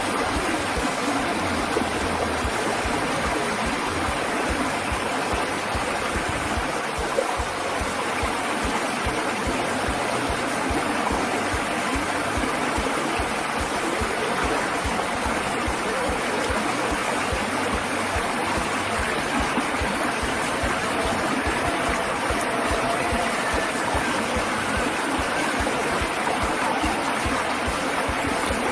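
Water rushing steadily over a small rocky cascade in a shallow stream, close to the microphone.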